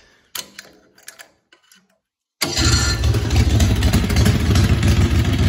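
A few light clicks and knocks, then about halfway through a Harbor Freight Predator 670cc V-twin engine cuts in loud and runs steadily with a fast, low pulsing beat through its custom exhaust with cocktail-shaker mufflers.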